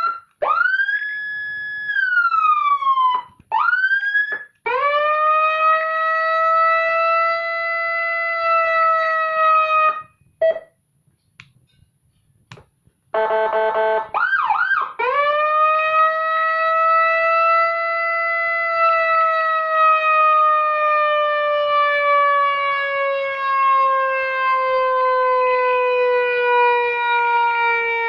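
Electronic siren module sounding Whelen Gamma G2 siren tones: a rise and a slow fall in pitch, a few quick whoops, then a long steady tone that drifts slowly. After a pause of about three seconds comes a short buzzy horn blast and some quick yelps, then another long tone that sinks slowly lower.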